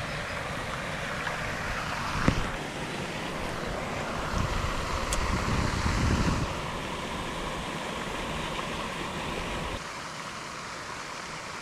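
Steady outdoor rushing noise, with wind buffeting the microphone for about two seconds near the middle and a single sharp knock about two seconds in.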